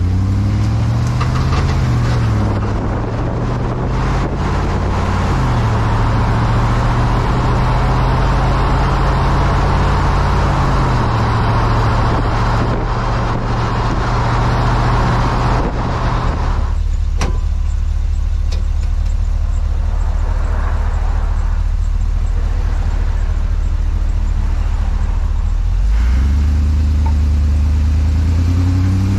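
Drivetrain and road noise heard from under a moving 2019 Chevrolet LCF 4500 box truck. The engine note climbs and drops a couple of times in the first few seconds, as it shifts up through the gears, under a heavy rush of tyre and road noise. About halfway through, the rush drops away suddenly, leaving a lower, steadier drone, and near the end the engine speeds up again.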